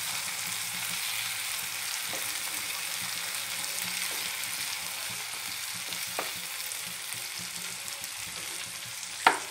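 Chopped onions and tomatoes sizzling in hot oil in a frying pan as a wooden spatula stirs and scrapes them through, a steady hiss with a few light taps. Near the end the spatula gives one sharp knock against the pan.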